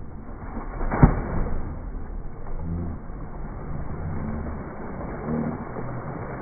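A person's body hitting the water in a dive, a single loud splash about a second in, followed by continued splashing and churning water as he thrashes under the surface.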